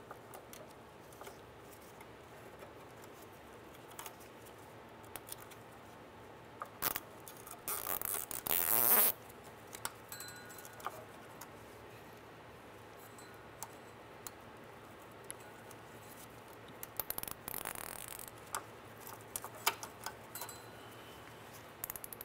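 Nylon cable tie ratcheting as it is pulled tight around a bundle of oxygen-sensor wires: a rasp lasting about a second and a half near the middle, and a shorter one later. Light clicks and rustling come from the wires and connectors being handled.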